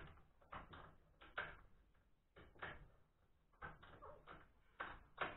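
Quiet, unevenly spaced clicks and knocks from a compound miter saw being adjusted by hand, its angle and pitch set and locked for a compound cut, with the blade not running.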